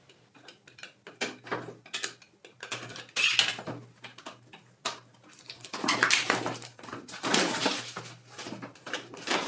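Hands handling and turning a small paperboard router box on a cutting mat: irregular taps, knocks and rubbing of the cardboard, loudest around six to eight seconds in.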